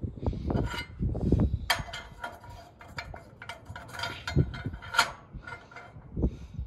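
Irregular metal clinks and knocks as a steel hitch pin is worked in and out of the drilled hole in a square steel tube clamped in a bench vise, with heavier low thuds from handling in the first couple of seconds.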